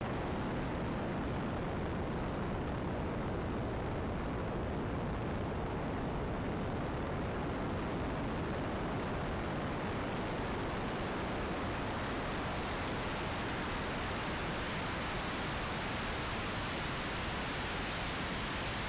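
Steady rushing wind noise over a camera mounted on a jet in formation flight: an even hiss with no clear engine tone, getting brighter in the second half.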